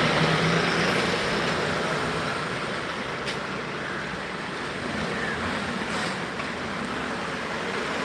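Road traffic on a busy town street: a steady wash of vehicle engines and tyres, with a low engine hum near the start.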